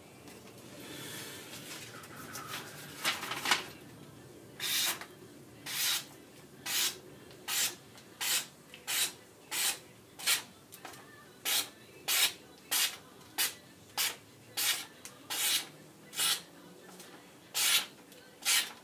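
Opinel No. 8 knife blade cutting through a sheet of paper in a quick run of short strokes, about one and a half a second, starting a few seconds in: a paper test of the freshly sharpened edge.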